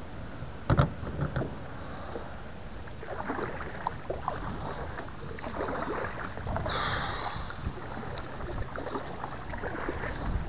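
Handling noise in a plastic fishing kayak: two loud knocks about a second in, then scattered small clicks, taps and rustling as rod and gear are moved about the boat, with a short hiss a little past the middle.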